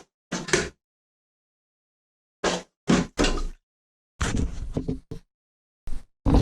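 Short knocks and clatters from handling toilet repair parts, about eight in quick irregular succession, with a pause of over a second near the start.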